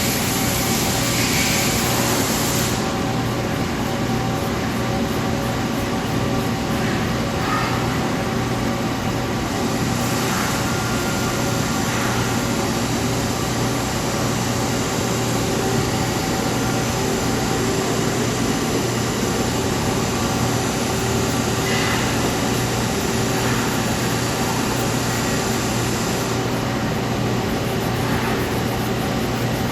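2007 Nomura NN-25YB Swiss-type CNC lathe running, a steady mechanical hum with constant tones and a hiss that is stronger in the first few seconds.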